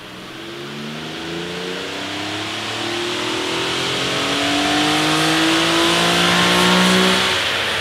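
Infiniti G37 Sport Sedan's VQ37VHR V6 in a full-throttle pull on a chassis dyno, rising steadily in pitch and loudness. This is the run with the stock exhaust and K&N panel air filters.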